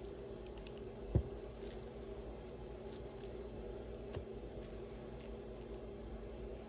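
Faint clicks and light rattling of costume jewelry being handled, with a sharper knock about a second in, over a low steady room hum.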